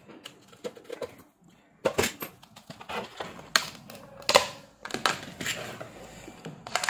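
Plastic clicks and snaps as the diffuser cover of an LED ceiling light is prised free of its housing clips, with the hard plastic cover knocking as it is lifted off and set down. The clicks come in irregular bursts, the loudest a little past halfway.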